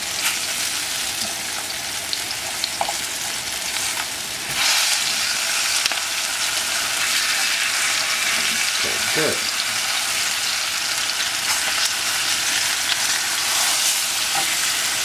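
Flour-dredged lamb shanks sizzling steadily as they brown in hot oil in a frying pan while being turned with tongs. The sizzle gets louder about four and a half seconds in.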